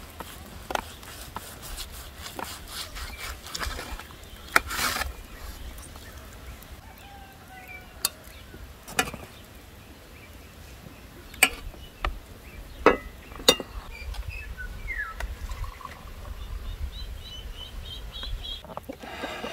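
Metal serving utensils clinking and knocking against ceramic plates and a metal roasting tray as roast lamb and potatoes are served: a dozen or so sharp clicks scattered through, the loudest a few seconds apart near the middle. Birds chirp faintly in the background, with a steady low rumble underneath.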